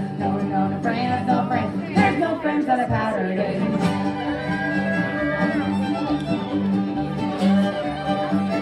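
Live acoustic string band music: two women's voices singing over guitar, mandolin and upright bass, then a fiddle takes the lead about four seconds in with held, sliding notes.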